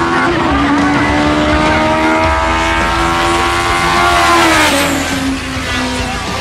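Race cars at full throttle on a drag run. A high-revving engine holds a high, slowly rising pitch, with a low rumble underneath, and its pitch drops away about five seconds in.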